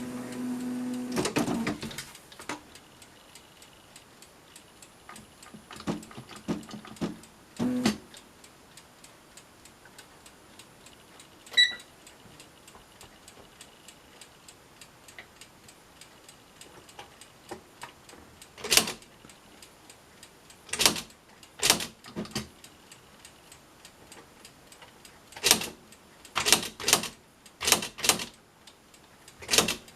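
Smith-Corona SE100 electronic daisywheel typewriter at work. A short mechanical run with a hum at the start, then scattered light clicks and one short electronic beep near the middle. In the last third come single sharp strikes as the daisy wheel is hammered onto the paper through the ribbon, spaced unevenly like keys pressed one at a time.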